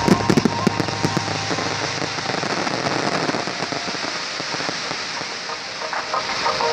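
Fireworks crackling: a cluster of sharp pops and bangs in the first second or so, then a steady, dense crackle like rain.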